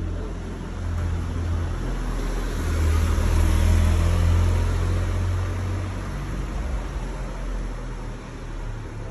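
Street noise: a low rumble with an even hiss that swells to its loudest about three to five seconds in, then fades.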